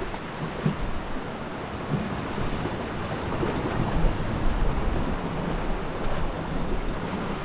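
Sea swell washing and surging against the rocks below, with wind buffeting the microphone in low rumbles.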